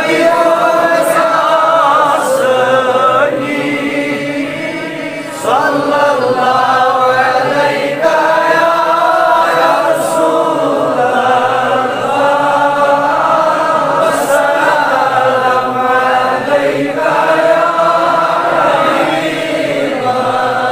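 Men's voices chanting Durood, salutations on the Prophet, together in a long drawn-out melody.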